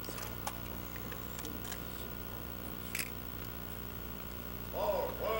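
A steady low hum with a few faint scattered clicks. Near the end come two short pitched calls that rise and then fall.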